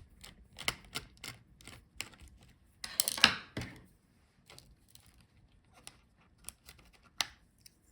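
Small, scattered clicks and taps of hands handling laptop components, likely the Wi-Fi card and its surrounding parts being pulled out and set down, with a louder rattle of handling about three seconds in and a single sharp click near the end.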